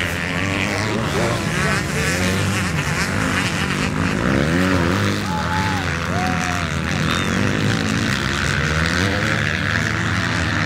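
Several MX2 motocross bikes racing past on a dirt track, their engines revving up and down in overlapping rising and falling sweeps as riders open and close the throttle through the turn and jump.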